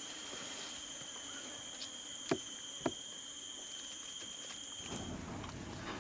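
Steady chorus of forest insects: several high-pitched tones held without a break. Two sharp clicks stand out about two and a half and three seconds in. About five seconds in, the insect tones cut off and a low rumble takes over.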